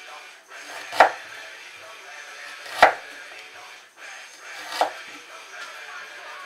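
Chef's knife slicing through fresh root ginger and knocking down onto a wooden cutting board: three separate sharp chops about two seconds apart.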